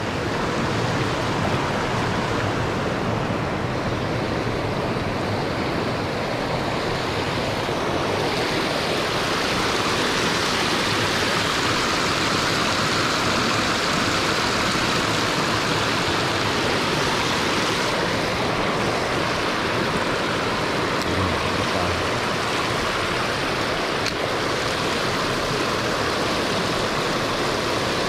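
A mountain creek's water rushing steadily, with its hiss growing a little brighter about eight seconds in.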